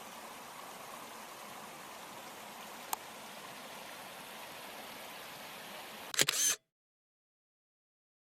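Faint steady outdoor hiss, then about six seconds in a camera shutter click: a sharp, short double-click. After the click the sound cuts to dead silence.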